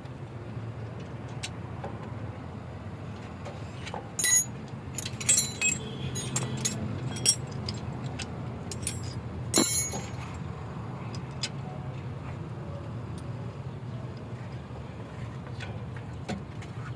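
Metal hand tools and brake caliper parts clinking and knocking during a rear brake caliper refit, a scattered run of sharp clinks between about four and ten seconds in, the loudest near four seconds and near ten seconds. A steady low hum sits underneath.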